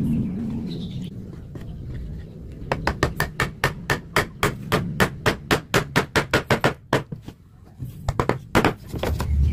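Quick, even run of hammer blows, about six a second for some four seconds, followed by two or three separate blows near the end. A low rumble runs underneath before the blows begin.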